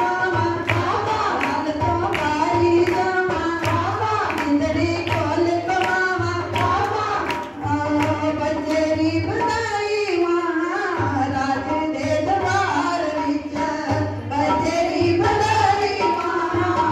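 A woman singing a Hindi Krishna-birth devotional song (badhai bhajan) into a microphone, with a hand drum keeping a steady beat underneath.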